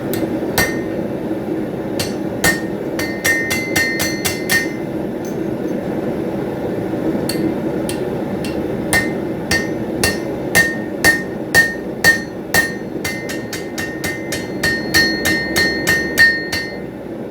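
Blacksmith's hammer striking a punch to drive a hole through hot steel over the anvil's pritchel hole: dozens of sharp, ringing blows in runs, with a pause of about two seconds around the middle and a quicker, steadier run in the second half. A steady hum runs underneath.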